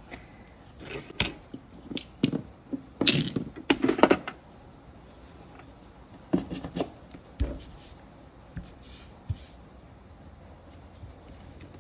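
Nail-art tools and a stamping plate being handled and set down on a work mat: a scatter of small clicks, taps and rustles, busiest in the first few seconds, with another cluster about six and a half seconds in and a soft thump shortly after.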